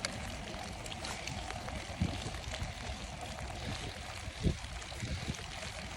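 Steady rushing of wind over the microphone on a moving bicycle, with tyre and road noise under it. Two low thumps break through, the louder one past the middle; no whistle sounds.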